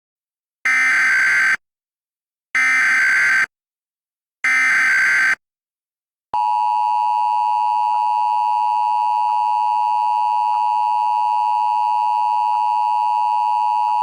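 Emergency Alert System header: three bursts of buzzing digital data tones, each about a second long with a second of silence between. About six seconds in, the steady two-tone EAS attention signal begins and holds.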